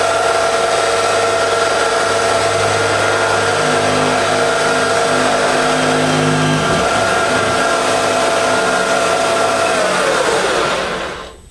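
Milling machine spindle running at top speed with a steady high whine while a high-speed-steel bit is pressed into the workpiece for friction welding. About ten seconds in, the whine drops in pitch and dies away as the mill is switched off and braked.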